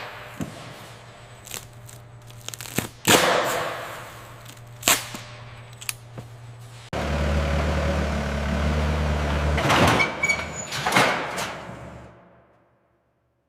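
Several sharp knocks and clanks, then a motor starts up about halfway through with a steady low hum and fades out shortly before the end.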